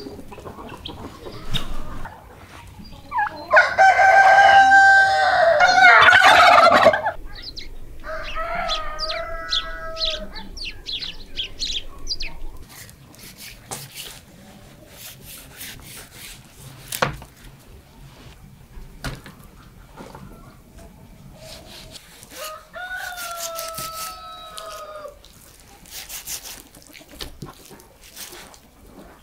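A rooster crowing three times: a loud crow about three seconds in, a fainter one right after it, and another about twenty-three seconds in. Sharp clicks and taps of a knife on a wooden cutting board run through the second half.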